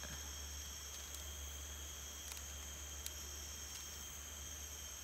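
Steady high-pitched insect chorus in forest undergrowth, buzzing at several pitches at once. A few faint sharp snaps come through, about four, as thin strips of plant stem are split apart by hand.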